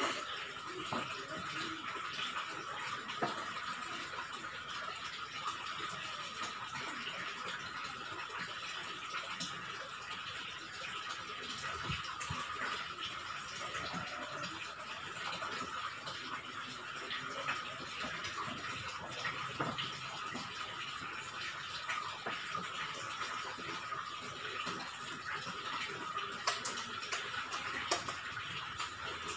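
Steady rushing noise like running water, with a few faint clicks and taps.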